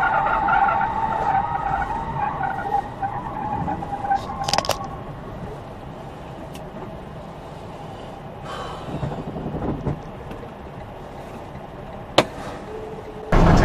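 Car tyres screeching as an out-of-control car skids, fading out about two seconds in, then a single sharp crash of impact about four and a half seconds in. After the crash comes a quieter steady road rumble and one short click near the end.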